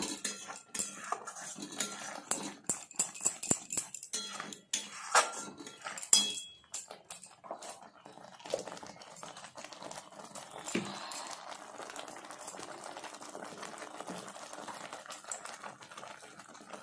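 Steel spatula clicking and scraping against a metal kadai as a thick green leafy-greens paste is stirred, many quick knocks in the first half. From about eight seconds the stirring stops and the paste bubbles and sputters steadily as it cooks.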